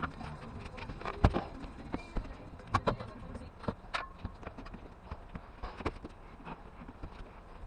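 A series of irregular sharp knocks and clicks, the loudest a little over a second in, with others clustered around three and four seconds and fainter ones after.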